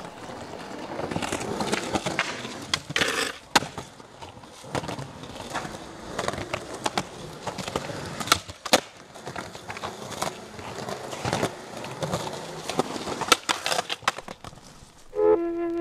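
Skateboard wheels rolling on concrete, with several sharp clacks of boards hitting the ground and rails. Flute music starts near the end.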